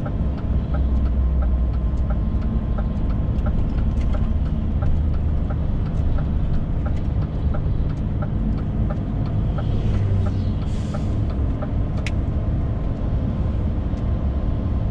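DAF XF 530 truck running downhill, heard from inside the cab: a steady low engine and road rumble, with a regular light ticking two or three times a second through most of it. A brief hiss comes a little after ten seconds, then a single sharp click.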